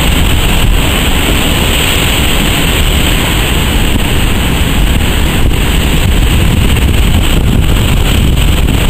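Heavy storm surf breaking in a loud, steady wash of noise, with wind buffeting the microphone.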